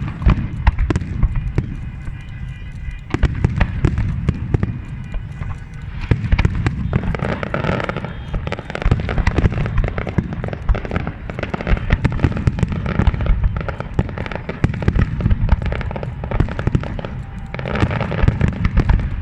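Large fireworks display going off without pause: a dense barrage of booms and sharp bangs over a heavy low rumble, with spells of thicker crackling about a third of the way in and again near the end, picked up on a phone's microphone.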